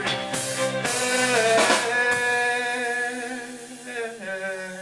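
Live band of electric guitars, violin, bass and drum kit playing an instrumental passage between verses: drum hits in the first couple of seconds, then a held chord that rings and slowly fades.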